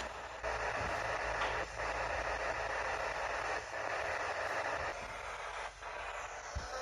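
Steady radio static hiss from a spirit box scanning through radio frequencies, with a few brief breaks in the hiss.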